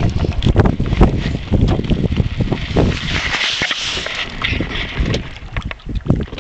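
Irregular rustling, rubbing and knocking against a chest-mounted camera as the wearer moves, with a brief hiss about halfway through.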